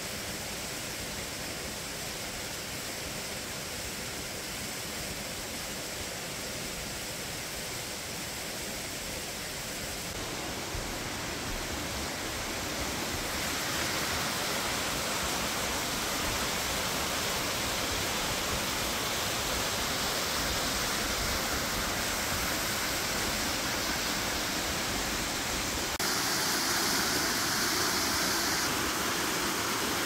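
Steady rushing of a waterfall pouring over rock ledges. It grows louder about a third of the way in and steps up abruptly a few seconds before the end.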